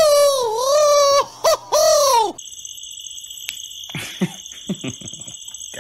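A high-pitched, wavering "aaah" scream in a few long breaths, laid over a baby turtle gaping while its shell is scrubbed with a toothbrush; it stops about two and a half seconds in. Then steady high electronic tones come from a smartphone game, with short taps as a young bird pecks at the screen.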